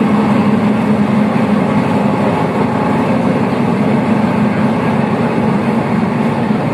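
D4H diesel-hydraulic locomotive's engine running with a steady low drone.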